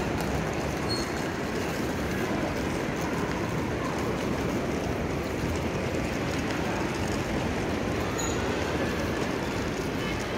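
Luggage trolley wheels rolling over a tiled floor: a steady rolling rumble against the constant hubbub of a large hall.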